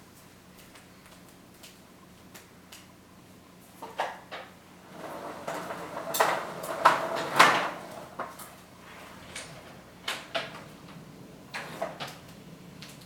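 Irregular knocks, clicks and scraping coming from inside a wall, with a busier stretch of louder scraping and knocking from about four to eight seconds in.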